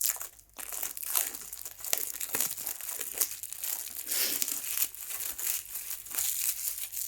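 Packaging crinkling and rustling as it is handled during unboxing, an irregular run of crackles.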